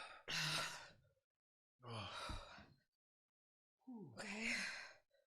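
A man blowing out heavy, sighing breaths twice, a second or so apart, from the burn of a very hot chili snack. Near the end he mutters a voiced 'okay'.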